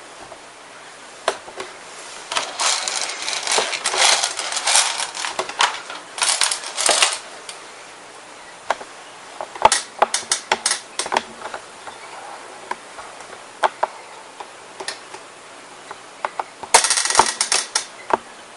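Well R6E M4A1 electric airsoft gun firing: a few rattling bursts of rapid shots, with single clicking shots in between.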